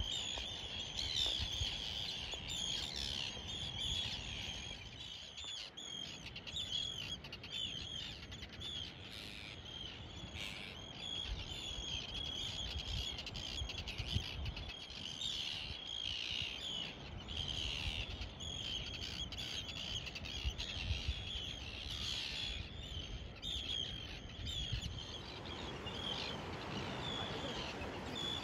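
A flock of seabirds calling constantly, many short calls overlapping, with gusts of wind rumbling on the microphone.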